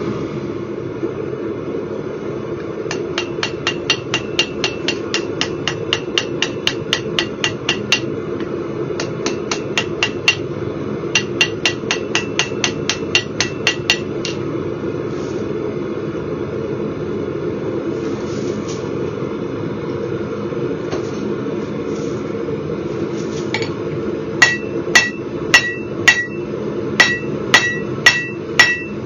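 Hand hammer striking rebar steel on an anvil. There are quick runs of about four blows a second, then a pause with only a few scattered strikes. From about 24 seconds in come louder, ringing blows at about two a second. A steady hum runs underneath throughout.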